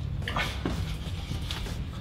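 Scuffs, rustling and light knocks of a person clambering through a narrow hatch, with a sharper scrape about half a second in and a click about a second and a half in, over a steady low hum.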